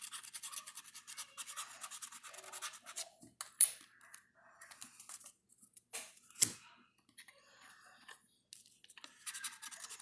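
A scratch-off lottery ticket being scratched: quick, rhythmic scraping strokes, a patchier pause in the middle with a couple of sharp taps, then brisk scraping again near the end.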